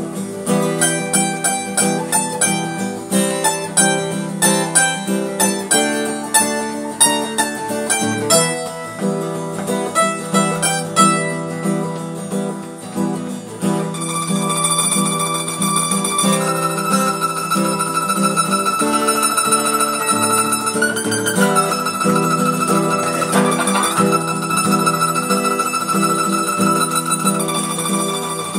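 Mandolin and acoustic guitar playing a newgrass instrumental, the guitar strumming the rhythm while the mandolin picks the lead. The lead is quick separate notes at first and changes about halfway to long held notes.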